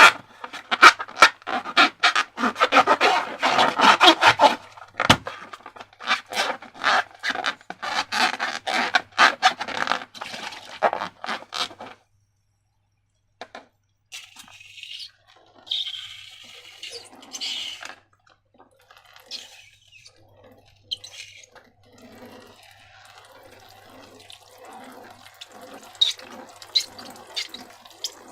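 Slime being squished and mixed: wet, sticky clicking and crackling, dense for about twelve seconds, then a short silence, then sparser, quieter squelches.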